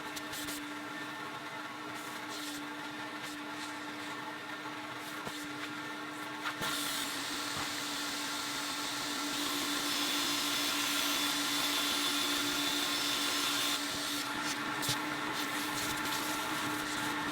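Vacuum motor running with a steady whine. About seven seconds in, a loud rushing hiss of air builds up, then eases near the end, with scattered clicks and knocks of the nozzle.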